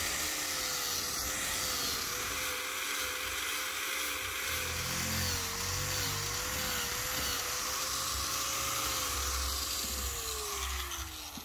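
Electric power tool running steadily with a continuous hiss, its motor pitch wavering slightly, then winding down near the end.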